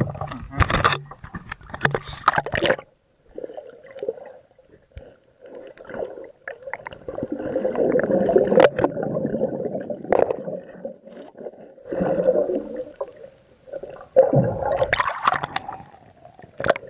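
Muffled gurgling and sloshing of seawater heard through a submerged camera. It is broken by splashing at the surface in the first few seconds and again a couple of seconds before the end.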